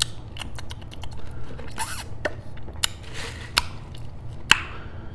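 Close-miked handling noise from paper drink cups being picked up and moved: scattered sharp clicks and taps with two short rustles, over a steady low hum.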